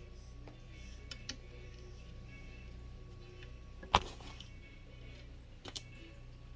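A few light taps and one sharp knock about four seconds in, from kitten paws hitting the phone camera during play fighting, over a steady low hum.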